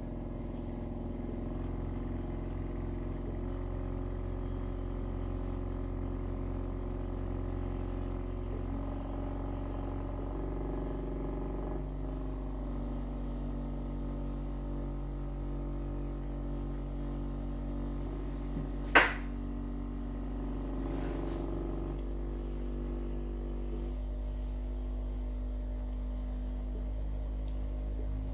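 Subwoofer with a dish of water on its cone playing steady low tones that step to a new pitch every few seconds, over a constant low hum. One sharp click about nineteen seconds in.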